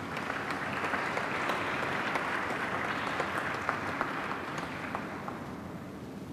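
Audience applauding with many hands clapping, swelling in the first second and fading away near the end.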